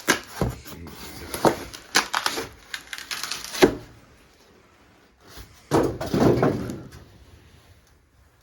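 Knocks, clicks and rattles from handling a new Harbor Freight 46-inch tool box and its packing, a quick run of them over the first few seconds, then a louder clatter about six seconds in.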